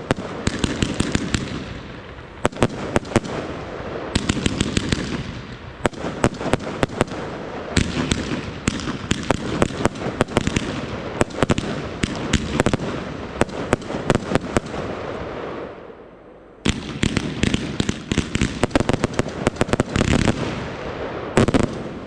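Weco 'Diwali' compound firework of four fused 25 mm batteries firing: rapid volleys of launch shots and bursts with crackling between them. About two-thirds of the way through it drops off briefly, then a fresh dense salvo starts.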